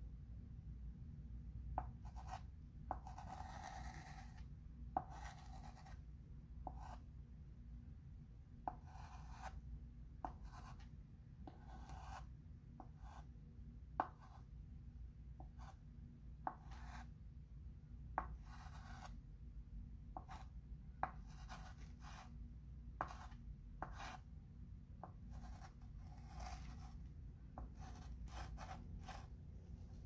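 Chalk pencil writing on a chalkboard: faint, short scratchy strokes, with one longer stroke about three seconds in and an occasional sharp tick.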